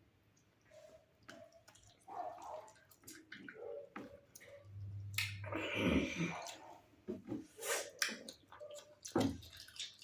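Scattered clicks and drip-like noises with short pitched blips, made on purpose by a boy as an irritating prank. The loudest part is a noisier stretch about five to six seconds in.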